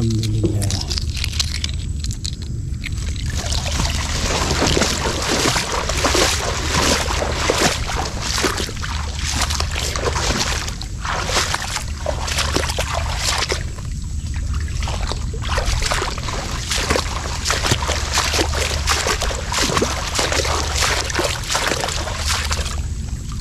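Small boat under way on the water: continuous sloshing and splashing of water against the hull over a steady low hum.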